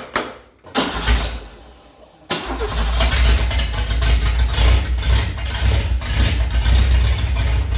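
Holden 186 inline-six, bored out to 192 and fed by twin carburettors, being started: the last strokes of the starter cranking, a brief catch about a second in that dies away, then it fires at about two seconds and keeps running steadily.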